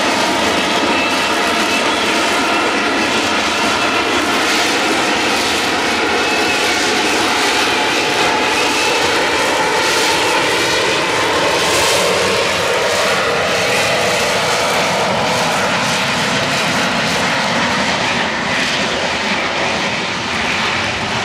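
Harrier II jump jet's Pegasus turbofan running at hover power: a loud, steady jet roar with a whine over it, easing slightly near the end as the jet drifts away.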